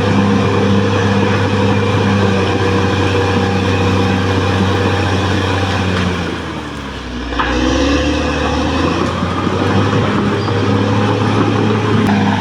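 Caterpillar D6R XL bulldozer's diesel engine running steadily. About six seconds in the revs drop, and they pick back up a second or so later.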